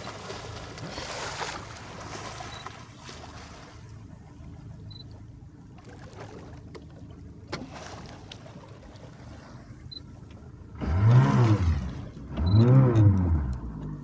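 Motorboat engine running steadily. Near the end come two loud sounds about a second long each, their pitch rising and then falling.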